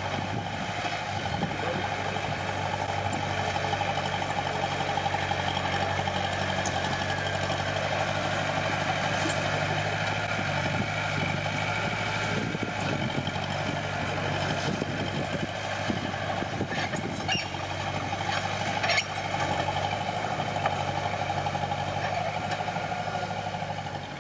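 Diesel engine of heavy earthmoving machinery running steadily under load, with a few sharp metallic knocks late on.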